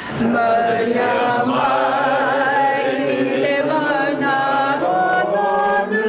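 A group of people singing a Māori waiata together. A new sung line starts just after the beginning, after a brief breath-pause.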